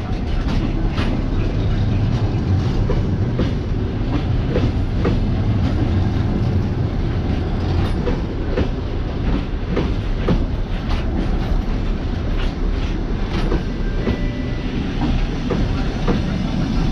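Grand Service Express passenger coaches rolling past as the train pulls into the station, with a steady low rumble and wheels clicking over the rail joints.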